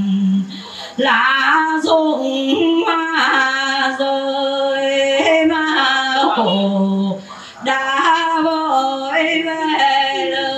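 Vietnamese funeral music: a single slow, mournful melody line of long held notes that slide between pitches, with two short pauses.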